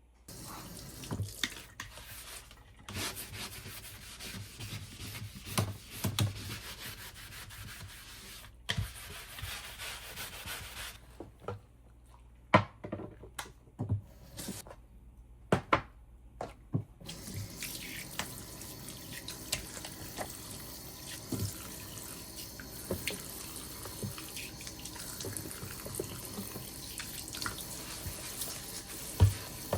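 Kitchen tap running into a sink, turned off and on several times, with knocks and clatter of dishes or utensils being washed or rinsed.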